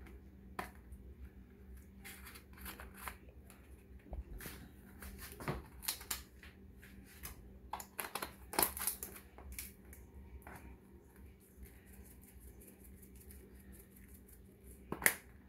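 Dry seasoning shaken from shaker bottles over raw oxtail pieces: irregular soft rattles and taps in short clusters, with a sharper click near the end, over a faint steady low hum.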